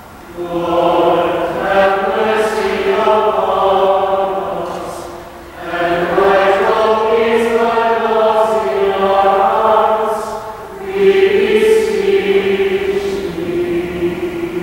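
Choir singing a chant-like response to the Ten Commandments in three long phrases, with short breaks between them.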